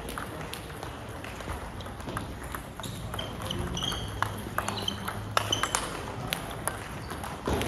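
Table tennis balls clicking off bats and table in a rally, with a quick run of sharp hits about five and a half seconds in and a duller knock near the end.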